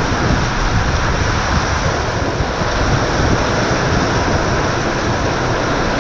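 Heavy storm rain pouring down, a loud steady hiss.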